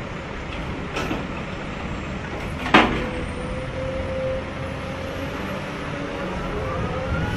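A Sennebogen log-handling material handler running steadily. A small click comes about a second in, then a sharp clank just before three seconds in as the grapple closes on the logs. After that a steady whine holds while the bundle is lifted, with a rising tone near the end.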